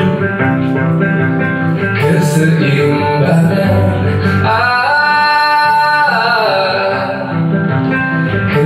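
A man singing a song to his own acoustic guitar accompaniment, holding one long note about halfway through.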